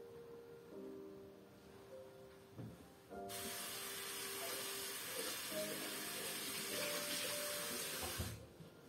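Water running from a tap for about five seconds, turned on and off abruptly, over soft instrumental background music.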